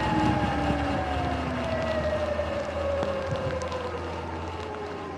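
Sur-Ron electric dirt bike's motor and chain drive whining, the pitch falling steadily as the bike slows, over a steady rush of tyre and wind noise.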